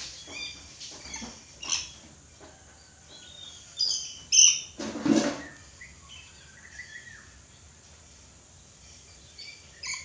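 Red lory calling: scattered short, high, shrill notes, with a loud burst of harsh screeches about four to five seconds in and another short shriek near the end.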